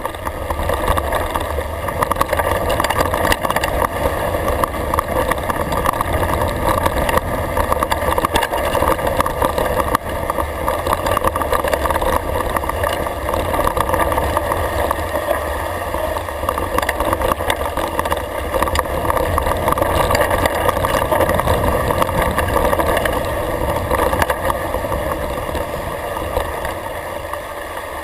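A mountain bike rolling fast downhill over grass and gravel: wind rushing over the action camera's microphone with deep buffeting, tyre rumble, and a constant fine rattle of the bike over bumps.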